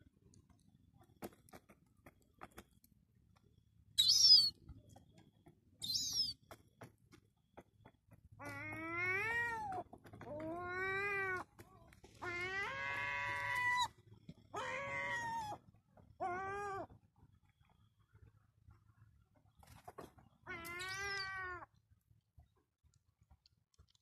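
Herring gulls calling: two short, shrill squeaks about four and six seconds in, then six drawn-out whining cries, each about a second long, that rise and fall in pitch. The longest cry comes near the middle.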